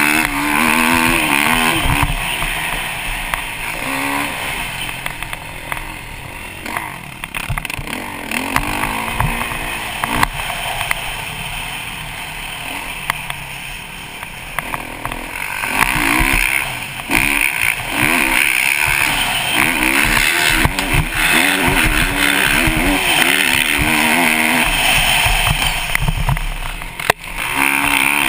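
Kawasaki KX450 four-stroke single-cylinder dirt bike engine revving up and down as it is ridden hard around a motocross track, pitch climbing and falling with each throttle change. It eases off for a stretch in the first half, then runs hard again from about halfway, dropping away briefly near the end; wind buffets the helmet microphone throughout.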